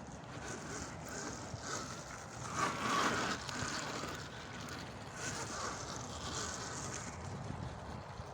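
Wind buffeting the microphone over the hiss of an electric pit bike's tyres on wet ground while it is ridden, with a louder swell of rushing noise about three seconds in and another near the middle.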